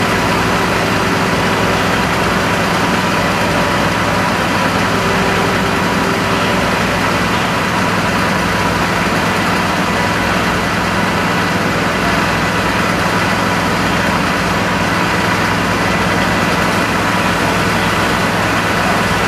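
Heavy fire-truck engines running steadily, a low hum with a faint steady whine over it.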